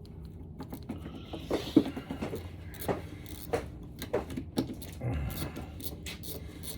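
Irregular metal clicks and clinks of hand tools at work on an engine: a socket wrench with extension working intake manifold bolts, with no steady ratchet rhythm.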